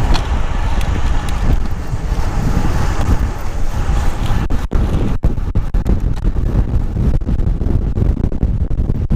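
Wind buffeting a GoPro camera's microphone as a road bike coasts fast downhill, a loud low rumble that cuts out for an instant several times in the second half.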